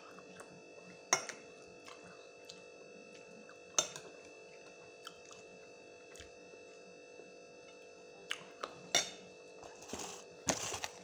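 Eating by hand from a plate during a fried chicken wing mukbang: a handful of sharp clicks and clinks of food and fingers against the dish, with a short crunchy rustle near the end, over a steady low hum.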